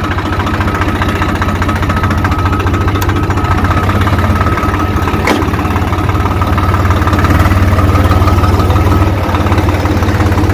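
Swaraj 744 FE tractor's three-cylinder diesel engine idling steadily, freshly started. There is a single sharp click about five seconds in.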